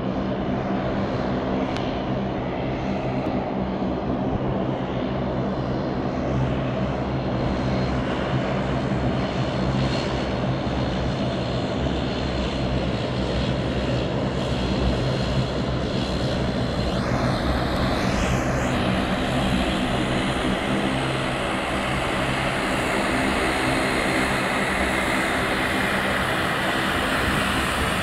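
Bombardier Dash 8 Q400's two Pratt & Whitney PW150A turboprop engines running at taxi power: a steady propeller drone with a turbine whine that grows stronger in the second half as the aircraft taxis close by.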